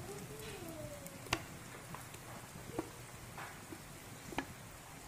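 Faint sizzle of shallots and garlic frying in oil in a wok, with a few sharp clicks, the loudest about a second in.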